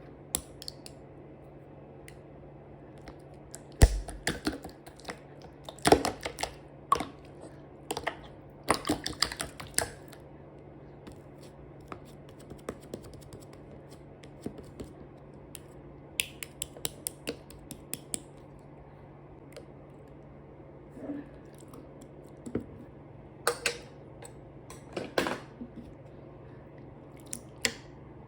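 Slime being pressed, poked and squeezed by hand, giving irregular sticky clicks and popping crackles. The clicks come in scattered clusters, with a quick dense run of them around the middle.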